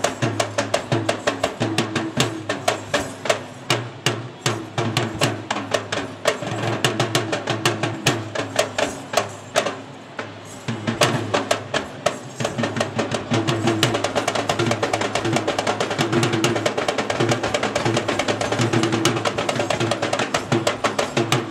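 Sri Lankan Kandyan drums (geta bera), double-headed barrel drums played by hand, beating a fast, driving rhythm for a folk dance. The drumming thins out briefly about ten seconds in, then picks back up.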